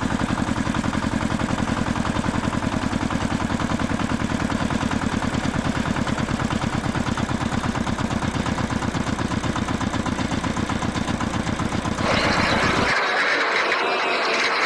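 An engine idling with a fast, even throb. About twelve seconds in, a louder, brighter rushing sound takes over and the low throb stops.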